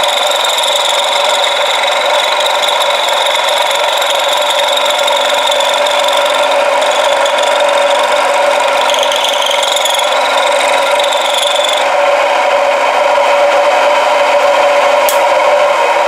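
Milling machine end mill cutting into a rough hot-rolled steel block: a steady machining noise with high ringing tones. The highest ring drops away about twelve seconds in, and there is a single click near the end.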